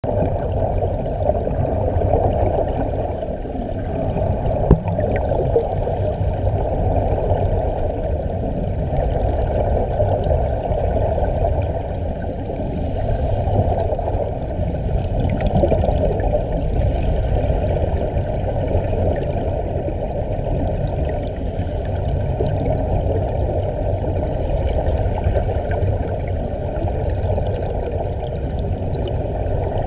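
Steady muffled underwater rush with bubbling, heard through an underwater camera's housing, with a single click about five seconds in.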